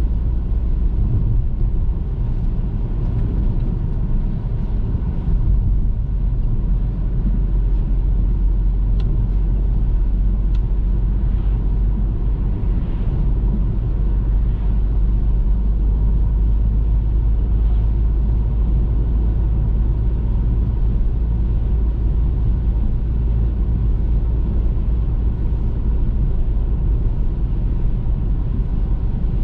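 Steady low rumble of a car driving along a road, engine and tyre noise without any marked change.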